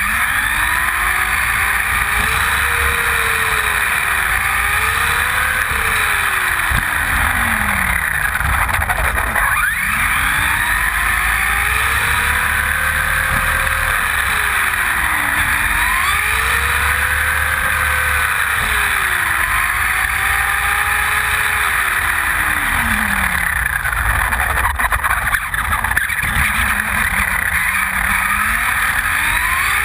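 Losi Mini-T electric RC truck heard on board: its motor and gears whine, rising and falling in pitch with the throttle, over a steady rush of road noise. The whine winds down almost to a stop about eight seconds in and again a little past twenty seconds, then climbs again each time.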